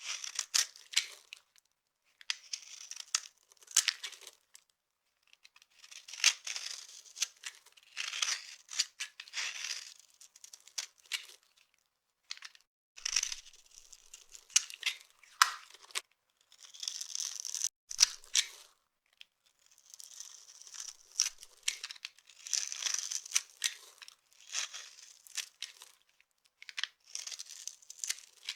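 Dry soap being crushed, crumbling with crisp crackling and crunching that comes in irregular clusters with short pauses between them.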